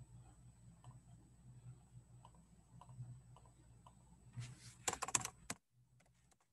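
Computer keyboard and mouse being used: faint scattered clicks, then a quick run of louder keystrokes about four and a half seconds in, which cuts off suddenly.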